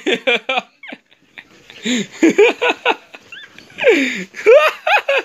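Siberian huskies vocalizing while play-wrestling: a string of short calls that rise and fall in pitch, in three bursts with a pause of about a second after the first.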